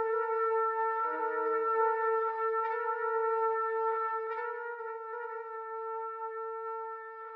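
Sampled trumpet ensemble music from the Spitfire Audio LABS 'Trumpet Fields' virtual instrument, holding one long note while a lower note joins briefly about a second in, then slowly fading out near the end.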